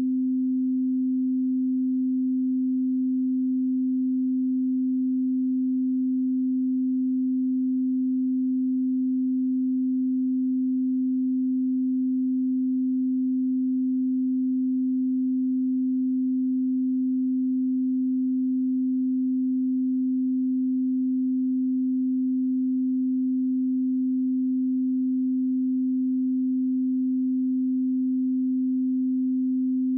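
Steady 258 Hz sine-wave test tone: one pure low-mid pitch with no overtones, held unchanged at a constant level.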